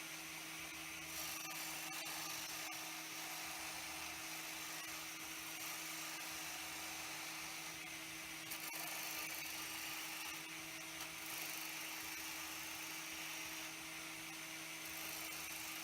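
Wood lathe running, with a turning tool cutting into a spinning hemlock hub: a steady motor hum under a hissing cut that comes and goes.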